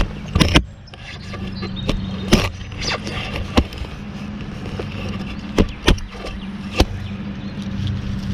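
Shovel digging into soil and turf: a string of sharp chops and scrapes of the blade, several strikes spread over a few seconds, over a steady low hum.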